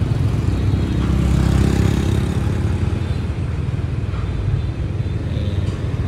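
Steady low rumble of nearby road traffic, with a motor vehicle's engine swelling about a second in and easing off by about three seconds.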